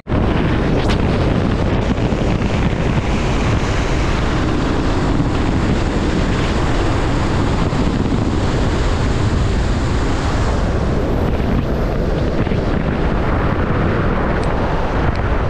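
Heavy wind buffeting the microphone: a loud, steady rushing noise with a strong low rumble.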